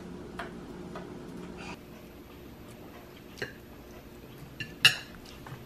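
A few light clicks and clinks of a fork against a ceramic plate, the sharpest about five seconds in, with a low steady hum under the first second or two.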